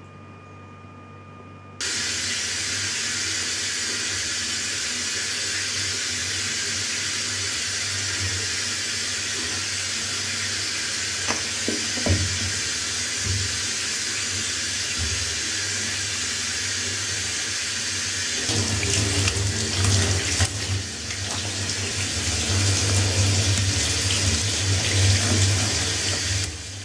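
Water running into a bathtub, starting suddenly about two seconds in as a steady hiss, and splashing over a kitten being washed by hand. From about two-thirds of the way through it gets louder and more uneven, then stops just before the end.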